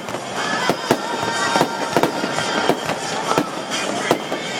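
Aerial fireworks bursting in an irregular string of sharp bangs and crackles, about one or two a second, picked up on a phone's microphone.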